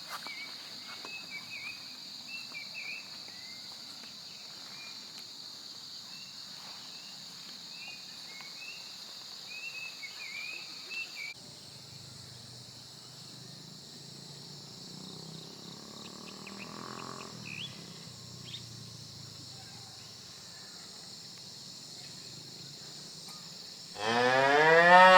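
Steady insect chorus with small birds chirping over it for the first half; after a cut, a low hum sits under the insects. Near the end a cow moos once, loudly, for about a second.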